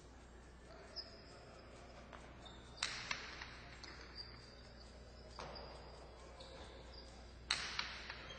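A jai-alai pelota cracking against the fronton walls during a rally. Sharp, echoing impacts come every couple of seconds, the loudest as quick doubles about three seconds in and near the end. Faint high squeaks sound in between.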